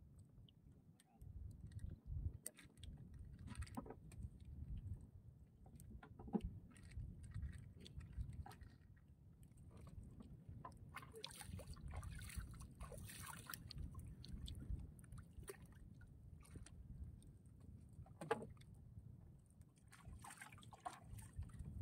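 Water lapping and sloshing against a small wooden outrigger canoe, with scattered knocks and clicks from the boat being handled and a short stretch of hiss about halfway through.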